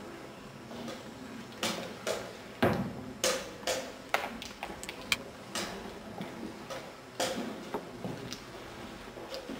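Chess pieces clacking down on a wooden board and chess clock buttons being pressed in quick, irregular succession, as in fast blitz play. The loudest knock comes a little under three seconds in.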